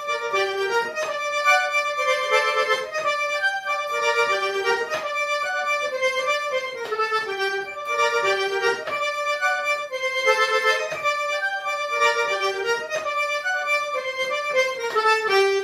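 Forró accordion playing a lively instrumental melody of quick notes over a steady rhythmic beat.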